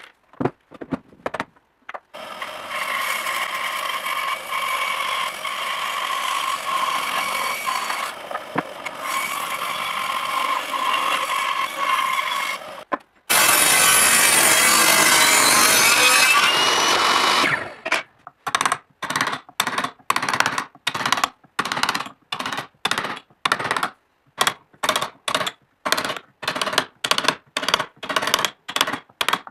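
A power tool runs steadily for about ten seconds. Then a Makita table saw cuts through a piece of wood in a loud four-second burst. After that come sharp, even taps, about two a second, of a carving gouge cutting into a wooden panel.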